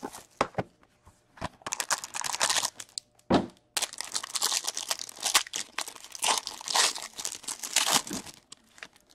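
Plastic shrink-wrap torn and crinkled off a hockey card box, then a foil card pack crinkled and torn open, in quick irregular crackles. There is a single sharp knock about three seconds in.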